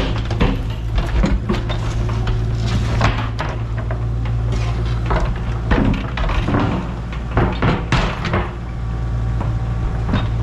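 A steady low engine hum with irregular knocks, clanks and clattering on top, typical of tank-removal work going on.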